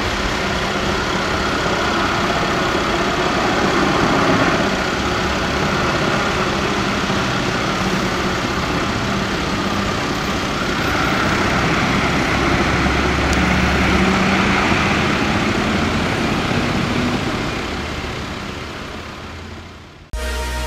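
MAN fire engine's diesel engine running as the truck pulls away and drives past, swelling twice and then fading out. Electronic music cuts in just before the end.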